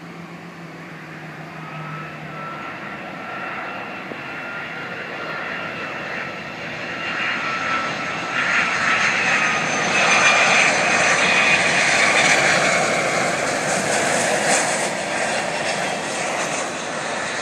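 Boeing 757 airliner on final approach, its twin jet engines growing from a distant rush to a loud roar with a high whine over it, loudest a little past the middle as the aircraft passes and easing slightly near the end.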